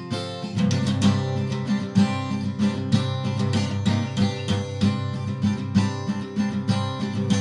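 Steel-string acoustic guitar strummed in a steady rhythm, chords ringing between strokes; the strumming grows fuller about half a second in.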